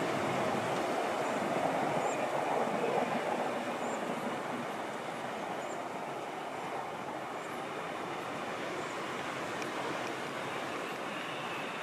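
A train passing with a steady rumble that eases off after the first few seconds.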